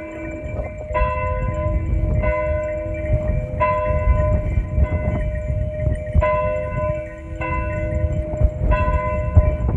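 A single church bell tolling in the steeple, struck about every 1.3 seconds, each stroke ringing on into the next. A loud, uneven low rumble runs underneath.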